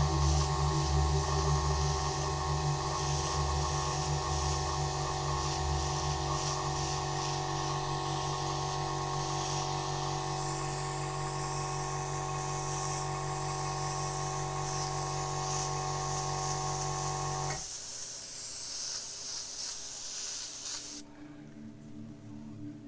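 Airbrush spraying paint, a steady air hiss that cuts off abruptly near the end as the trigger is released. Under it runs a steady hum of several tones that stops suddenly about three-quarters of the way through.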